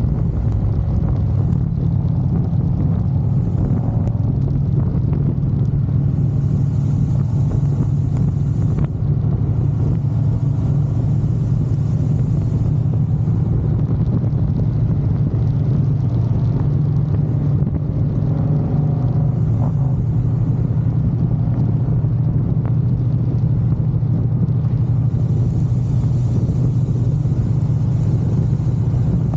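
Harley-Davidson touring motorcycles' V-twin engines running with a steady low rumble.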